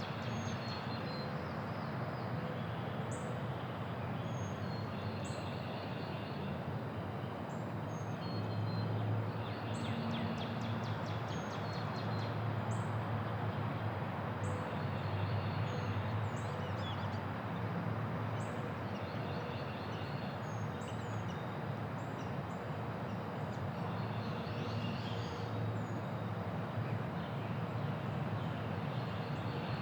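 Quiet neighbourhood ambience: a steady hum of distant traffic with small birds chirping and trilling throughout. The low rumble swells for several seconds in the middle.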